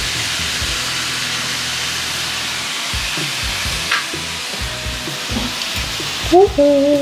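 Meat sizzling steadily on a hot samgyupsal grill pan, under faint background music. Near the end the sizzling cuts off and a short melodic tune comes in.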